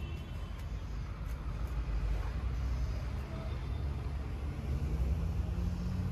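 Steady low engine rumble with no distinct events.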